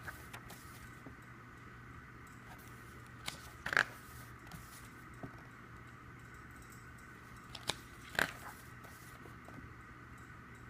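Quiet handling of the album's paper items and photo cards over a steady low hum: two pairs of short clicks or rustles, each pair about half a second apart, a little past three seconds in and again near eight seconds.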